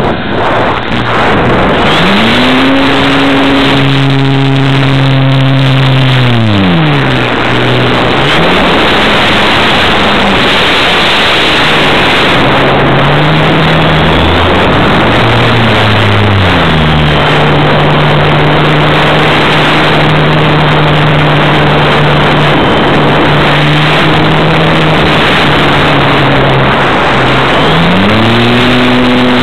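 Onboard sound of a radio-controlled model airplane in flight: its motor and propeller hum, the pitch rising and falling several times as the throttle is opened and eased off, then holding steady for a long stretch. Loud wind rushes over the on-board camera's microphone throughout.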